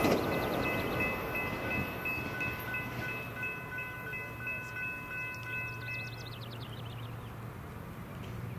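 Railroad grade-crossing bell ringing with an even, rapid beat, cutting off about six and a half seconds in as the crossing signal shuts off once the train has cleared. The rumble of the departing train fades underneath.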